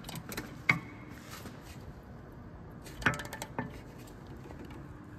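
Metal hand tools clinking and clicking on the rear brake caliper mounting bolts while they are being torqued: one sharp click about a second in and a short cluster of clicks about three seconds in.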